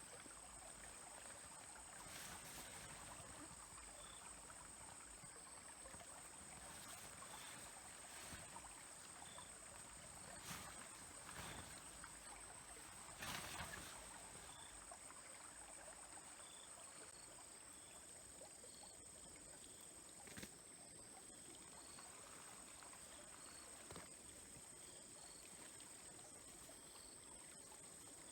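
Faint, steady trickling of a small stream, with a thin high-pitched whine running throughout and short faint chirps every second or two. A few soft knocks break in, the loudest about halfway through.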